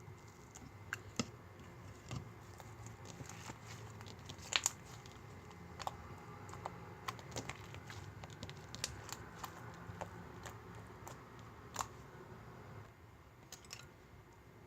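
Slime being squished and stretched by hand, giving scattered small clicks, crackles and pops.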